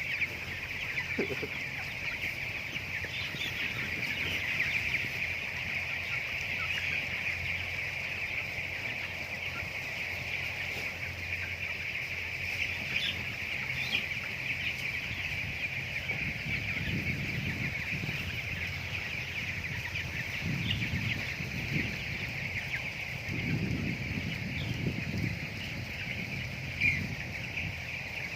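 A flock of broiler chickens peeping and cheeping continuously, many high calls overlapping into a steady chorus, with some lower noises in the second half.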